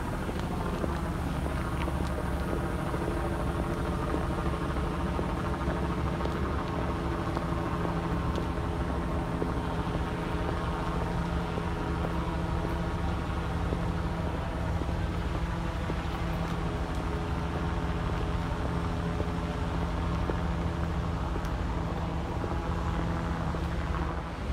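A steady engine drone: a constant low rumble with a held hum above it that does not change.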